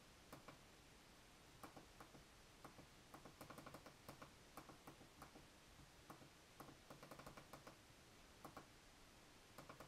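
Faint clicks of the RGB2HDMI's small tactile push-button switches, pressed singly and in quick runs of several, stepping through settings in the on-screen menu.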